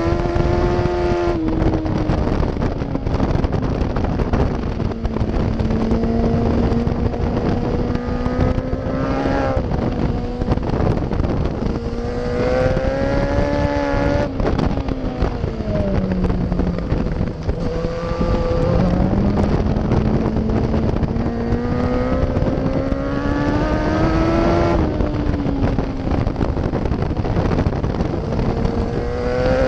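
Yamaha FZ1's inline-four engine at racetrack speed, its pitch climbing steadily under throttle and dropping abruptly several times at gear changes or as the throttle closes for corners, with a lower, steadier stretch about halfway through. Heavy wind buffets the microphone throughout.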